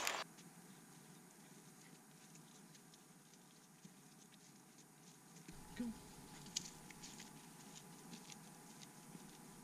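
Near silence: faint woodland ambience with a few light scattered ticks.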